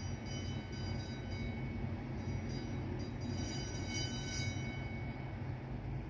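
Deep, steady mechanical drone with faint high whining tones above it, which grow a little stronger for a moment past the middle. This is the running engine of a Great Lakes freighter in the Duluth ship canal.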